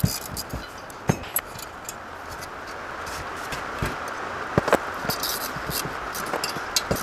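Scattered metallic clicks and clinks of spanners and nuts on steel studs as cylinder-head studs are screwed into an aluminium engine block, over a steady background hiss.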